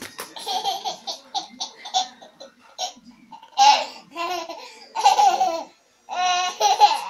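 A young girl laughing: a run of short, quick giggles, then from about halfway louder, longer high-pitched peals of laughter.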